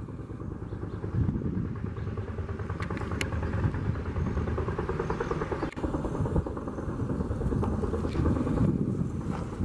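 Kaman K-MAX helicopter with intermeshing twin rotors flying overhead on a long line, a steady rapid rotor chop over its engine.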